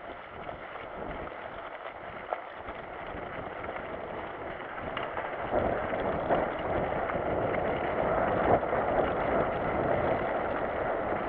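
Mountain bike rolling down a wet dirt track: a steady rush of tyres on wet ground and wind on the camera, getting louder about halfway through, with a few knocks from the trail.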